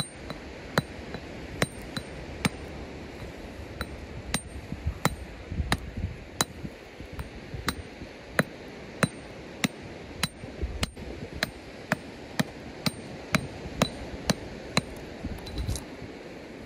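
Geological hammer striking a hand-held beach stone over and over to split it open in search of fossils: some twenty sharp metal-on-rock knocks with a slight ring, roughly one every half second to a second.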